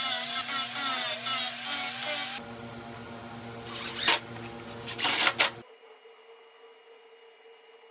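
A woodworking power tool cutting: a long loud cut with a wavering whine ends about two and a half seconds in. The motor runs on more quietly through two short cuts, then shuts off about five and a half seconds in, leaving a faint steady hum.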